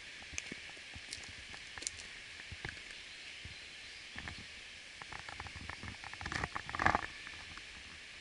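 Footsteps on a dirt forest trail: a run of steps from about five seconds in, the loudest near seven seconds, over a steady faint hiss. A few short, high ticks in the first two seconds.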